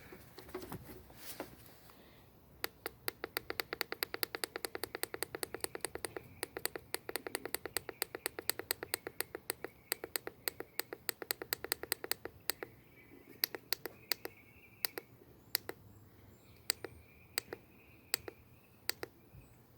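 Rapid clicking of a handheld battery tester's keypad button, pressed over and over to step the cold cranking amp setting up to 750. The clicks come about six a second for some ten seconds, then slow to one or two a second.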